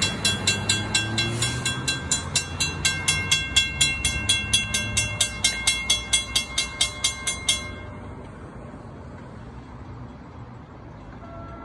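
Railroad grade-crossing warning bell ringing fast and evenly, about four strokes a second, while the gates stand raised and a car drives over the crossing. The bell cuts off suddenly about three-quarters of the way through as the crossing clears, leaving a low traffic rumble.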